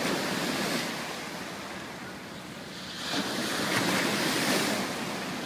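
Pacific Ocean waves washing onto a beach: a steady rush of surf that eases off, then swells louder again about three seconds in as another wave comes in.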